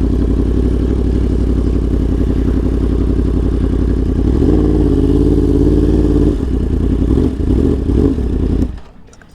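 Yamaha R1's inline-four engine running at low speed. Its pitch rises briefly about four and a half seconds in as the throttle opens, then falls back and wavers. The engine sound stops abruptly near the end.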